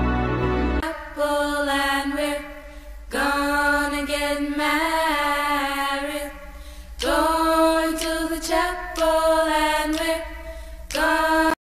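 Background music: a sung vocal line of slow, held notes in a chant-like style with little accompaniment, after a brief fuller passage of music at the start. It cuts off abruptly near the end.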